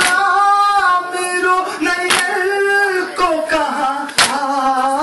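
Mourners chanting a noha, a sung Urdu lament, in long drawn-out lines. Twice, about two seconds apart, loud hand slaps on the chest (matam) land in time with the chant.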